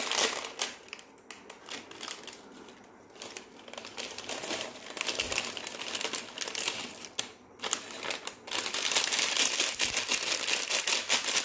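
Crinkling of a plastic snack packet being shaken as roasted masala chana pour out of it, with the dry chickpeas clicking into a glass bowl; loudest over the last few seconds.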